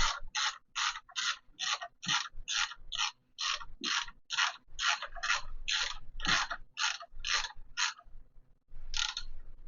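Fork rebound damping adjuster on a Yamaha YZ125 front fork being turned, clicking through its detents at about two and a half clicks a second. The clicks stop about eight seconds in, with one more click near the end.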